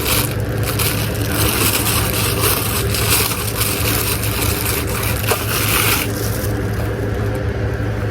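Plastic packaging crinkling and crackling as it is handled and opened, stopping about six seconds in, over a steady low hum.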